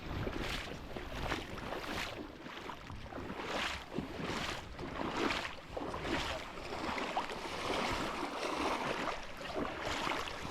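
Rushing water of a high, fast creek, a steady hiss with short uneven surges about every second.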